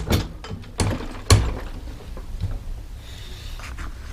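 Sturmey-Archer three-speed hub, just reassembled after a pawl repair, turned by hand to test it: several sharp clicks from the pawls and ratchet in the first second and a half, then fainter ticks, with the plastic dust cover scraping a little.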